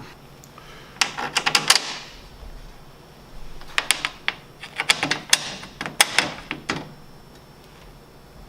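Snowmobile bumper parts and bolts being handled and fitted: a quick run of sharp clicks and clinks about a second in, then scattered clicks and knocks from about four to seven seconds.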